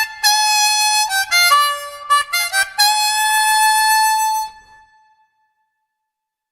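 Harmonica playing a short phrase of quick notes that ends on one long held note, which fades away a little past the middle.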